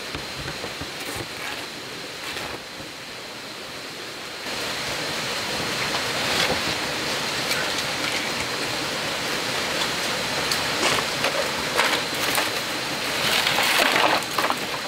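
Dry bamboo poles clattering and knocking as they are gathered and handled, loudest near the end, over a steady rushing background with a constant high-pitched hum. The background grows louder about four and a half seconds in.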